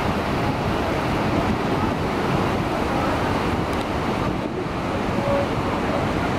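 Steady roar of the Niagara River's Horseshoe Falls pouring over the brink and of the rapids rushing just above it, with wind buffeting the microphone.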